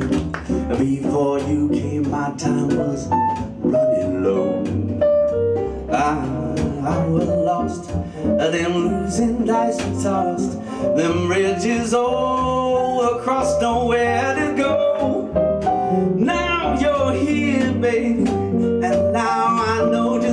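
Live jazz quartet playing a swing tune: piano, archtop electric guitar and bass, with a male singer vocalising over the band.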